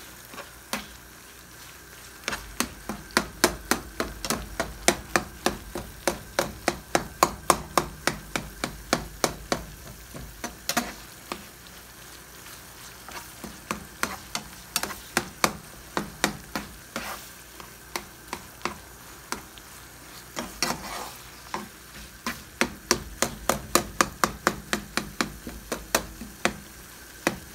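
Ground beef frying with a faint sizzle in a nonstick skillet while a metal fork chops and taps against the pan to break the meat into fine pieces: a quick run of sharp clicks, about two or three a second, that eases off twice before picking up again.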